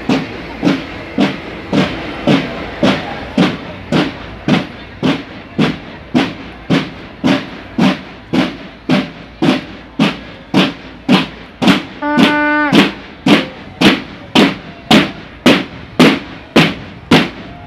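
Marching band drums beating a steady march cadence, just under two strokes a second. About twelve seconds in, a short held horn-like tone sounds over the beat.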